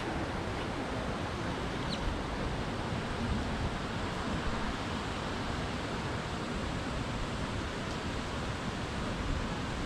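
Steady outdoor rushing noise with a fluctuating low rumble of wind on the microphone, and a single faint high chirp about two seconds in.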